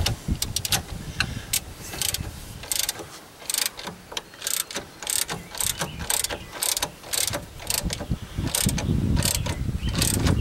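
Ratchet wrench cranking the forcing screw of a C-frame ball joint press on a truck's front suspension, clicking in short strokes about twice a second.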